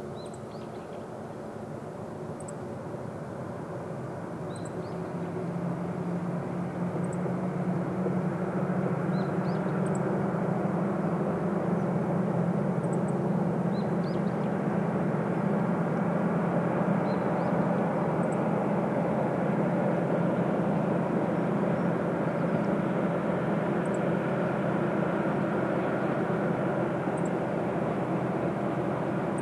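Diesel train engine droning at a distance, growing louder over the first several seconds and then running steadily, with short high chirps dotted through it.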